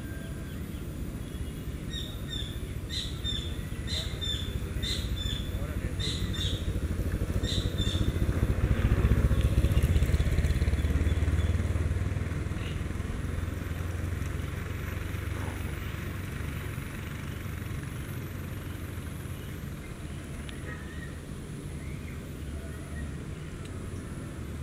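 Low engine rumble that swells to a peak about ten seconds in and then slowly fades. Birds chirp repeatedly over it during the first several seconds.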